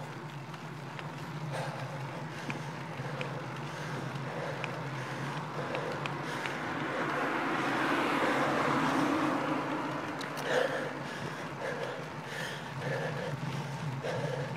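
Road bicycle rolling along an asphalt lane: steady tyre hum and wind rush on the handlebar-mounted camera. The rush swells to its loudest about eight seconds in, then eases, with a few light ticks along the way.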